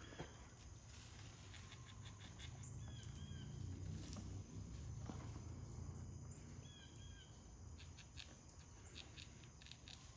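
Faint outdoor ambience: a short high chirping call comes three times, about four seconds apart, over a low steady rumble that swells in the middle, with scattered small clicks and rustles.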